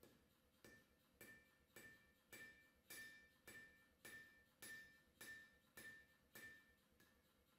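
Hand hammer forging a red-hot steel deba blade on an anvil: a steady run of blows about two a second, each with a short metallic ring. The blows grow louder through the middle and ease off toward the end.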